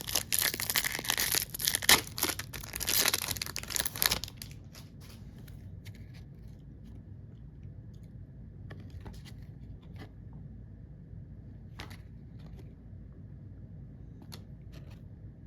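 Foil trading-card pack wrapper being torn open and crinkled for about four seconds. After that the sound drops to a quiet stretch with scattered faint clicks as the cards are handled.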